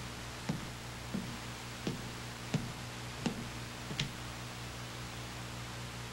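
Six footsteps of hard-soled shoes on a hard floor, an even walking pace of about one step every 0.7 s, stopping about four seconds in. Under them runs a steady hiss and low hum.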